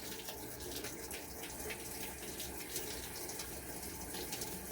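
Washing machine filling with water: a steady rush of water running into the drum.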